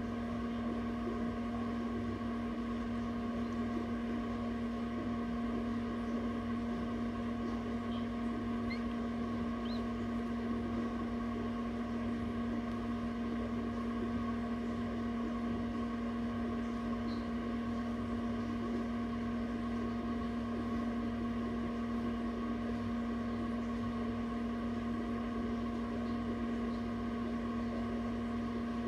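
Egg incubator's fan motor running with a steady, even hum.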